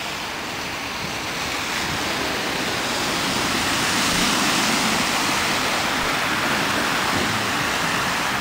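A car driving fast through deep floodwater on a road, throwing up a rushing, splashing spray of water that builds to its loudest about halfway and then eases off.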